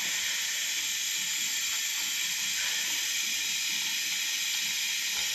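Tap water running steadily into a small glass of hydrochloric acid and rock slurry and spilling over into a plastic bowl in a basin, diluting the acid: an even, steady hiss of running water.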